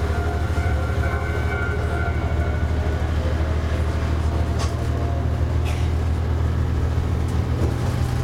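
Isumi 200-type diesel railbus running along the line, heard from inside the car: a steady low engine drone with the rumble of wheels on rail and a few short clicks.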